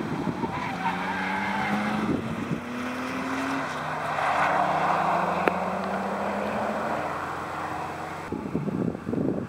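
Subaru Impreza 2.5i's flat-four engine pulling through an S-bend, its note shifting in pitch, with tires squealing at their grip limit about halfway through as the car drives away. Wind buffets the microphone near the end.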